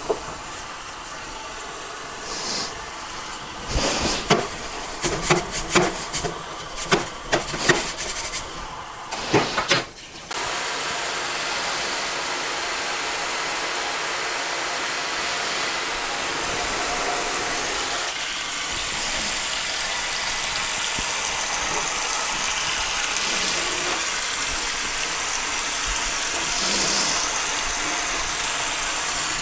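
Water from a kitchen faucet sprayer running onto a two-stroke cylinder in a stainless steel sink while it is scrubbed. For about the first ten seconds there is an irregular clatter of sharp knocks and clicks as the cylinder and brush are worked against the sink. After that the water settles into a steady hiss.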